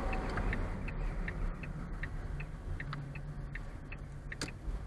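Car's turn-signal indicator ticking steadily, about two and a half clicks a second, heard inside the cabin over a low engine and road rumble as the car slows to turn into the fuel station. A single sharper click comes about four and a half seconds in.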